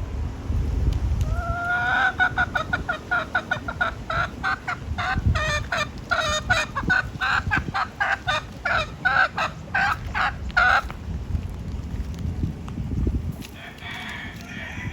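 A hen (domestic chicken) calling: one rising note, then a rapid run of clucks, several a second, for about nine seconds before it stops. A fainter call follows near the end.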